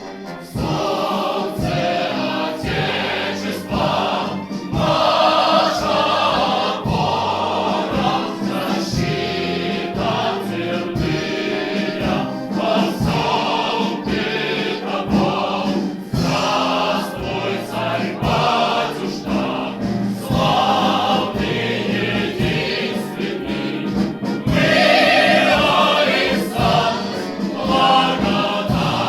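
A choir singing an anthem with instrumental accompaniment.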